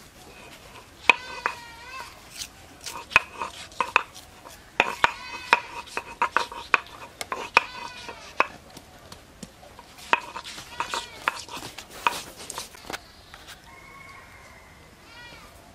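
A stone pestle knocking on a shil grinding stone as garlic cloves are crushed: many sharp, irregular knocks. Short pitched animal calls sound between the knocks, and a longer held call comes near the end.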